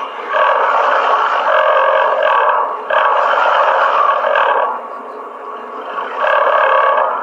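Water and air churning inside a borewell, a loud rushing sound that comes in surges one to two seconds long with short dips between. It is weaker for a second or so past the middle.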